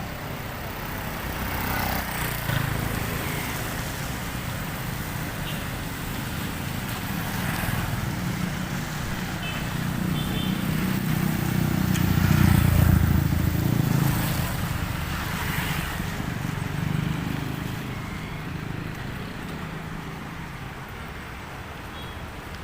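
Street traffic: a low engine rumble of vehicles on the road, swelling to its loudest as one passes about halfway through, then easing off.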